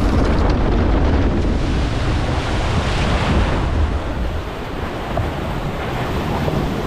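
Wind buffeting the microphone over a steady rushing noise.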